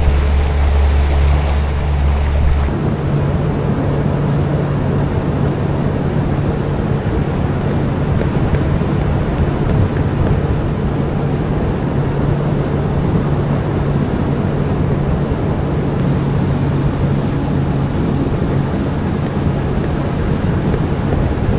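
An engine running steadily at speed, with a constant low drone over a loud rushing noise. A deeper hum cuts out about three seconds in.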